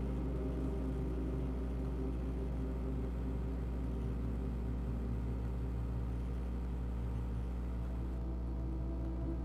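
Ambient meditation music: a steady low drone under long, held tones.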